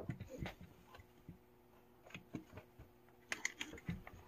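Faint scattered clicks and light taps of small objects being handled, with a few quick ones together about three and a half seconds in.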